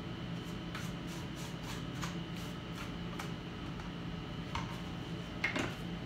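A scatter of light clicks and taps from hands handling an opened iMac and its internal parts, with a sharper knock about four and a half seconds in and the loudest one about five and a half seconds in, over a steady hum.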